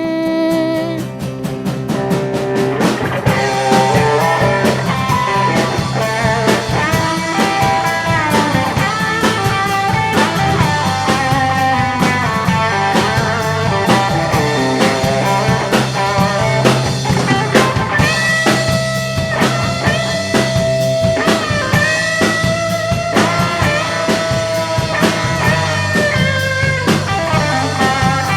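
Live rock band playing an instrumental break: an electric guitar solo with bending notes over bass and drum kit.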